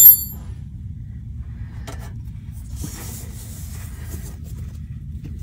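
A sharp metallic clink that rings briefly right at the start, then faint rubbing and rustling of a hand working at the NOx sensor's wiring connector, over a steady low rumble.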